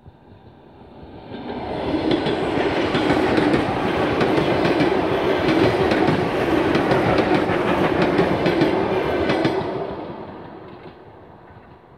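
Red suburban electric multiple unit (elektrichka) passing close by: the sound builds over a second or two, stays loud with rapid clicking of the wheels over the rail joints, then fades away near the end.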